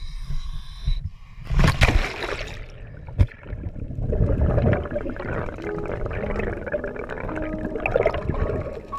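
A diver enters the sea from a dive boat with the camera: a loud splash about a second and a half in. It is followed by muffled underwater rushing and bubbling, with one sharp knock about three seconds in.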